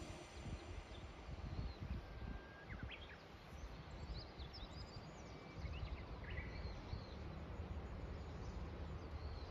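Rural outdoor ambience: a low, uneven rumble with scattered short bird chirps and whistles, mostly in the middle stretch.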